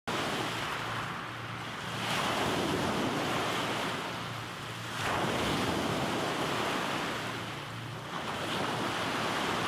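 Small waves breaking and washing up a pebbly beach, each surge swelling and falling back about every three seconds.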